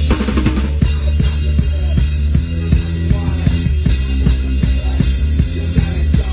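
Rock band playing live, with the drum kit up close: a steady run of bass drum and snare hits over a heavy low bass.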